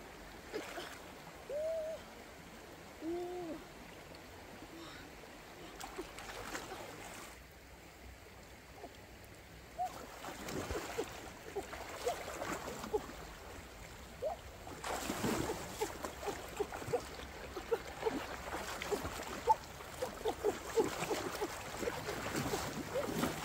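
River water splashing and dripping, with a few short gurgles in the first seconds. About ten seconds in the splashing gets busier, with many quick plinks of drops hitting the water.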